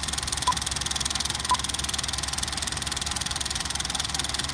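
Film projector running with a steady fast clatter, a sound effect laid over a countdown leader, with short high countdown beeps once a second, two of them in the first two seconds.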